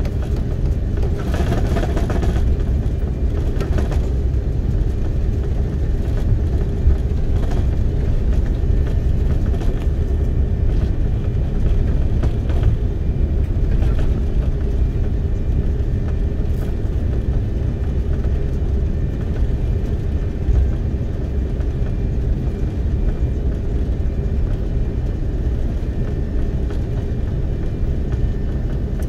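Steady low rumble inside the cabin of an Airbus A330-300 with its Rolls-Royce Trent 700 engines running, the sound of the airliner waiting to take off.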